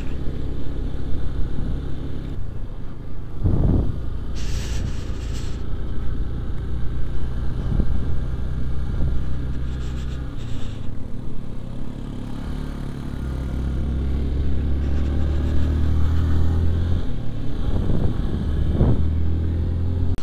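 Motorcycle engine running while riding at road speed, a steady low drone that grows louder about two-thirds of the way through.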